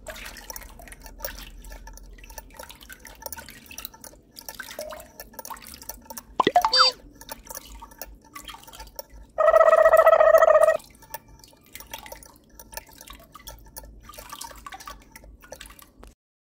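Water trickling and dripping from the spout of a miniature hand pump into a small plastic pond, in many small patters. About six and a half seconds in comes a short rising sound, and about nine and a half seconds in a loud steady tone that lasts about a second and a half.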